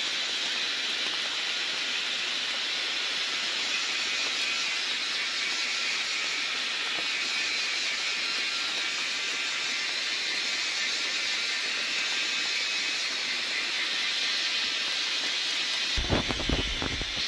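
Steady high-pitched hiss of forest ambience, with no gunshot. About a second before the end, low thumps and rustling break in as the camera is moved.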